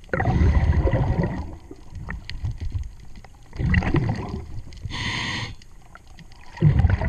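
A scuba diver's regulator underwater: exhaled bubbles rumbling and gurgling in three bursts, at the start, near four seconds and near the end, with one short inhalation hiss about five seconds in. Faint scattered clicks are also heard.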